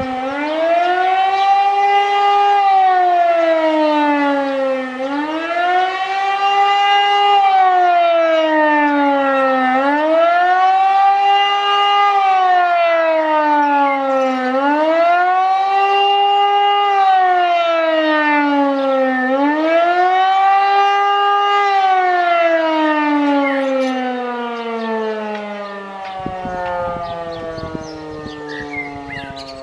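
E57 electromechanical civil-defence siren sounding the rising-and-falling wail of the German warning-to-the-population signal, cycling up and down about every five seconds, five times over. About three quarters of the way through it stops cycling and winds down in one long falling slide, fading as it goes.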